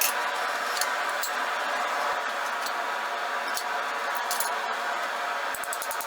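Forge running with a steady rushing noise, with a few light metallic clinks of steel and tongs scattered through.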